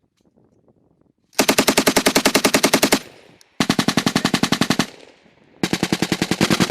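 M240B medium machine gun firing three long bursts at about ten rounds a second, with short pauses between them, each burst trailing off in an echo. The first burst begins about a second and a half in.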